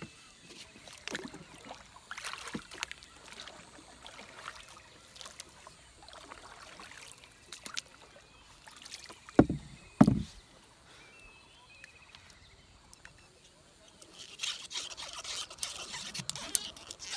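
Small wooden boat on a lake being worked with a long pole: scattered light knocks and water sounds, two heavy thumps about nine and ten seconds in, and a stretch of splashing near the end.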